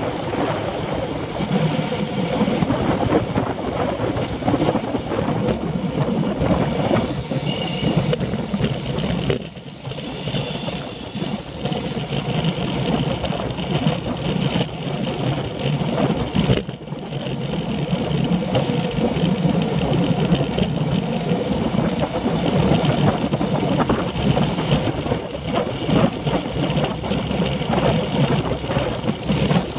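Wind rushing over a bike-mounted action camera's microphone while riding a road bike at speed, a steady low rumble that dips briefly twice.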